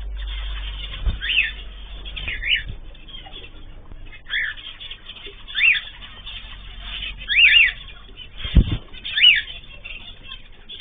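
Cage birds calling: short chirps that rise and fall in pitch, repeated every second or so, some in quick pairs. A single dull knock comes about eight and a half seconds in.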